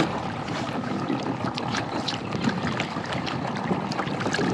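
Sea water sloshing against the side of a plastic fishing kayak, with many small splashes and knocks as a hand reaches into the water for a hooked cubera snapper lying beside the hull.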